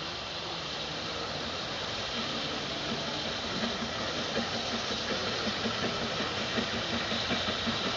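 BR Standard Class 9F steam locomotive 92203 'Black Prince' approaching, its exhaust beating at about two to three chuffs a second over a steady hiss, growing slowly louder.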